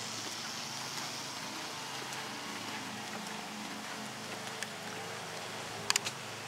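Steady background noise with a faint low hum, and two sharp clicks close together near the end.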